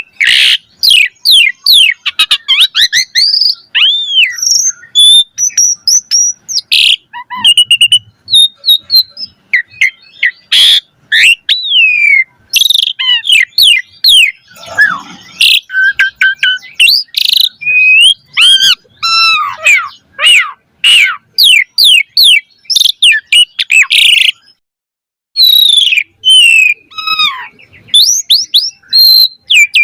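Javan pied starling (jalak suren) singing vigorously: a long, varied string of whistled up- and down-slurred notes, quick chatter and harsh calls, with one short pause about three quarters of the way through.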